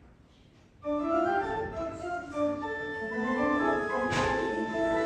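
Organ music starts about a second in, several sustained notes sounding together in a moving line. There is a single knock about four seconds in.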